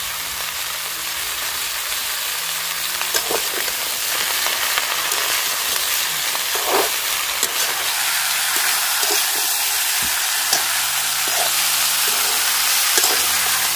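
Potato and ridge gourd pieces sizzling steadily as they fry in hot oil in a kadhai, with scattered knocks and scrapes as they are stirred.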